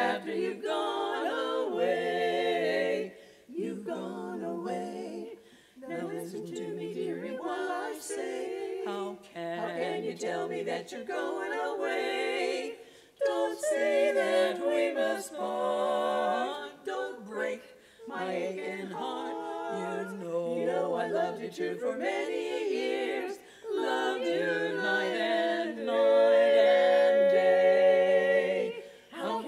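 Women's barbershop quartet singing a cappella in four-part harmony, in phrases of a few seconds with short breaks between them, the loudest held chord coming near the end.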